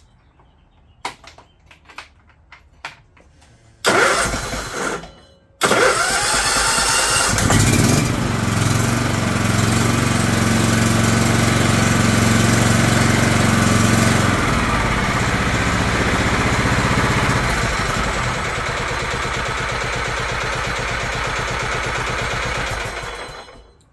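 A few light clicks, then the John Deere LT160 lawn tractor's engine is cranked by its starter about four seconds in. It stops briefly, cranks again and catches, runs fast for several seconds, then settles to a steady run, freshly refilled with oil and running well. It shuts off near the end.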